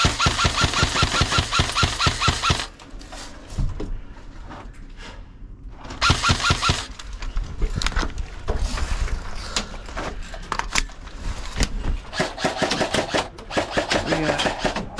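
Airsoft electric rifle firing on full auto: a long burst of rapid, evenly spaced shots with the gearbox motor buzzing, and a second, shorter burst about six seconds in.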